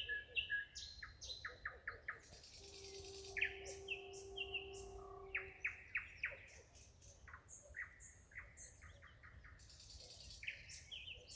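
Nightingale singing: phrases of rapidly repeated notes, rattling clicks and whistles, each phrase held on one note type and broken by short pauses.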